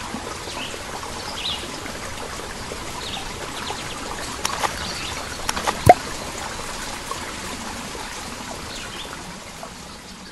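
Running, trickling water with scattered faint high bird chirps. About six seconds in, a brief loud sound drops sharply in pitch, and the water fades out near the end.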